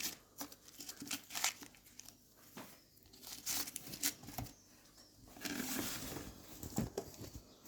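Hands folding and tucking thin buttered msemen dough sheets, a soft intermittent crinkling and sticky rustling with small clicks, busiest for about a second near the end.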